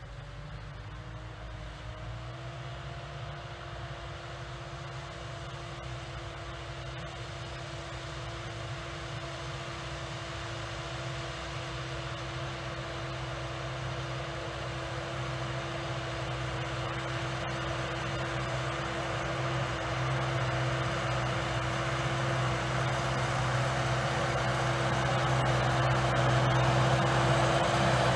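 New Holland T6.165 tractor running steadily under load while pulling a tillage implement through the field, getting steadily louder as it approaches. A steady whine rides over the engine and rises slightly in pitch about two seconds in.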